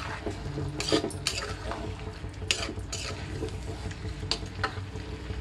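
A metal spoon stirring chicken in a thick green masala paste around an earthenware pot, with irregular clinks and scrapes of the spoon against the pot.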